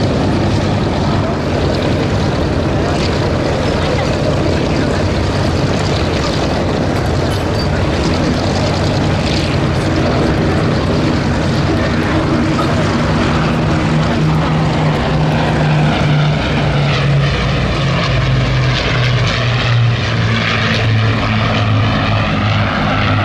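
Rolls-Royce Merlin piston engines of a Second World War propeller aircraft flying a display pass: a loud, steady drone whose pitch shifts in the second half.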